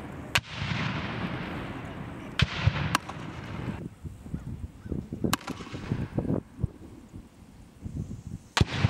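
40 mm grenade fire from an M32A1 multiple grenade launcher: five sharp reports of launches and grenades bursting downrange, the first and last followed by a long rolling echo.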